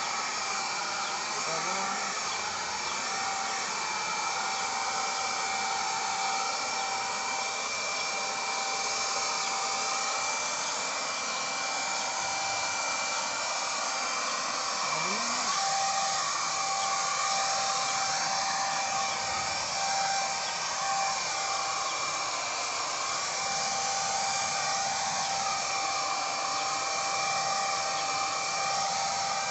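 Handheld electric HVLP paint sprayer running steadily while spraying paint: a continuous motor whine with several steady high tones over a hiss of air.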